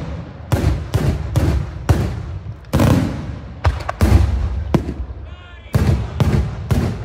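Daytime fireworks: aerial shells bursting overhead in a rapid, irregular string of sharp bangs, about two a second, each trailing a low rumbling echo.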